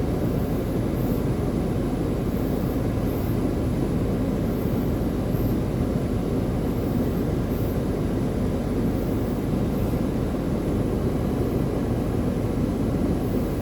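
Steady low rumble of a moving vehicle's road and engine noise, even throughout with no distinct knocks or events.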